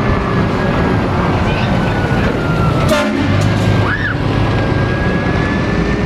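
Scania tractor unit's diesel engine running as the truck drives past and away, a steady low rumble, with a sharp click about three seconds in.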